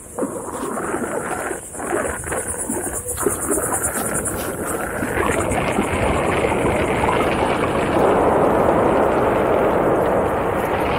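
Wind rushing over the microphone of a camera carried along with a Onewheel rider, growing louder from about five seconds in as the board picks up speed.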